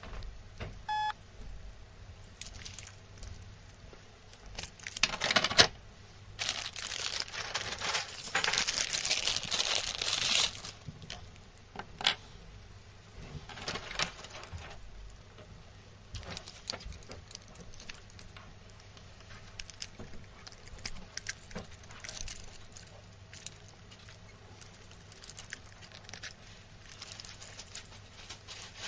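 Handling of a W960 watch phone as it is worked with a stylus: scattered light taps and clicks, a short electronic beep about a second in, a louder knock about five seconds in, then a few seconds of rustling.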